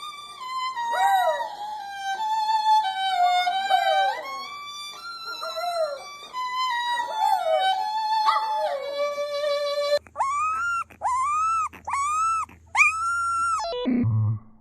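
Background music with sliding, fiddle-like notes, then a dog giving four short howls, each rising and falling in pitch, followed by a quick falling sound near the end.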